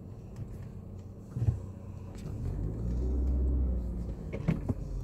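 Car engine accelerating: its pitch rises from about two seconds in, then holds as a loud, low rumble. A short thump comes just before.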